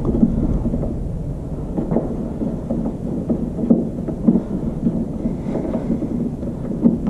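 Steady low rumble of wind on the microphone, with small irregular clicks of a Phillips screwdriver turning a screw out of a ceiling-fan mounting bracket.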